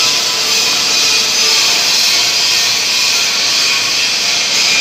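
Loud, steady hissing noise with no breaks or changes.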